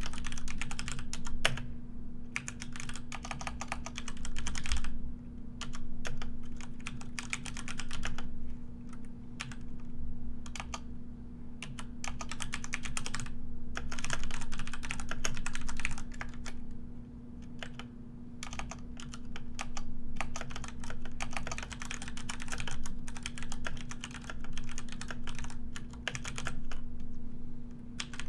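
Computer keyboard being typed on: quick runs of key clicks broken by short pauses, over a steady low hum.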